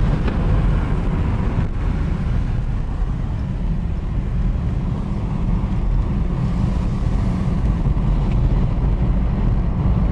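A car driving, with a steady low rumble of engine and road noise heard from inside the cabin.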